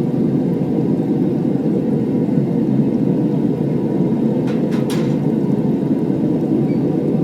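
A Devil Forge melting furnace's burner running with a steady low rush. Two or three brief clicks come about four and a half seconds in.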